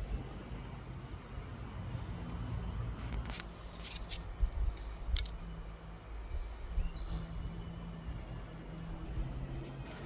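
Faint outdoor ambience with a handful of short, high bird chirps over a low, steady rumble, broken by a few light clicks.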